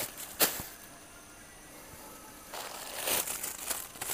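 Thin plastic bags crinkling and rustling in the hands while shallots are packed into small portions: one sharp crackle about half a second in, then a run of crinkling from about two and a half seconds in.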